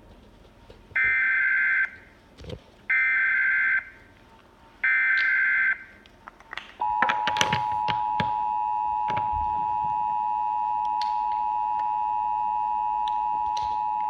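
Emergency Alert System SAME header: three short bursts of warbling digital data tones about a second apart, encoding a Child Abduction Emergency alert. About seven seconds in, the long, steady two-tone EAS attention signal begins.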